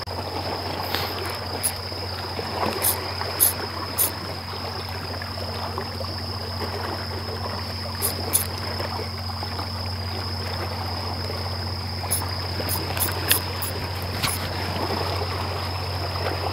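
Small waves lapping on a rocky shore under a steady, high insect trill, with a low steady hum beneath. A dozen or so sharp clicks come scattered through it.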